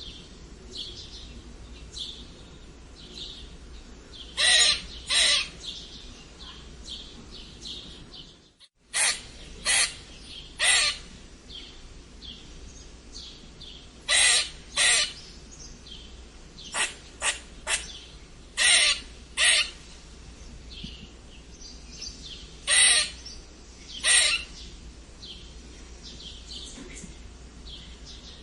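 Squirrel squeaking: short, sharp calls, often in pairs, coming at irregular intervals with fainter calls in between. The sound drops out for a moment about eight and a half seconds in.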